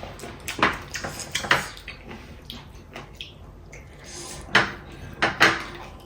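Tableware clinking and scraping on plates during eating, with several sharp clicks; the loudest come about four and a half and five and a half seconds in.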